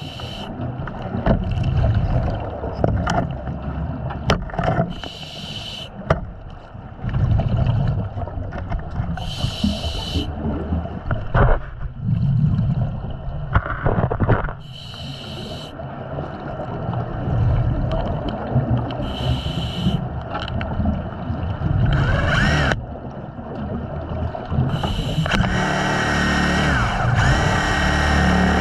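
Diver breathing underwater through a regulator: a hissing, bubbling exhalation about every four to five seconds over a low rumbling wash. Near the end a steady whine with an even pitch starts.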